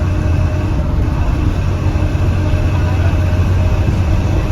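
Steady low drone of a 2021 Blue Bird Vision school bus under way, heard from inside the passenger cabin: engine and road rumble.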